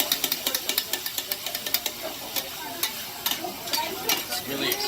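Okonomiyaki sizzling on a hot griddle, with metal spatulas scraping and clicking irregularly against it.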